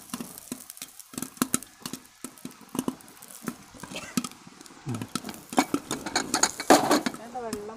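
Popcorn kernels popping inside a lidded pressure cooker, with sharp irregular pops coming several a second and growing louder in the second half.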